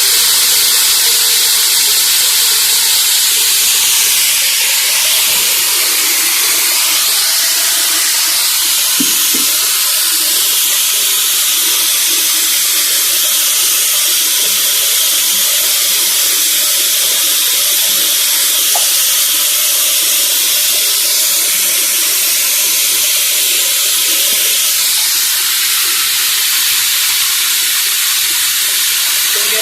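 Refrigerant gas hissing steadily as it is vented from a leaking refrigeration system, emptying it before the leak is brazed.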